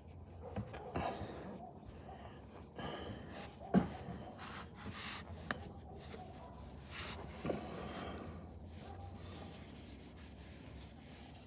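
Faint rubbing and handling noises with a few light knocks, as a rag is worked around a new spin-on oil filter to hand-tighten it.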